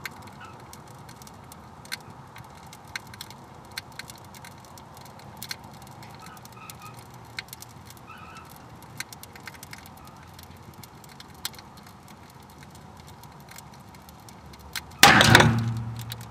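Fire crackling and popping inside a burning microwave, then about fifteen seconds in a single huge pop as the chambered 9mm round in a Glock 19 cooks off inside the microwave, ringing out over about a second.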